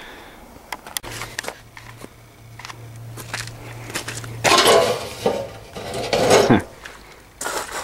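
Lid of a rusty sheet-metal wall-mounted mailbox being opened and handled: a few light clicks, then several loud metallic clanks and rattles in the second half.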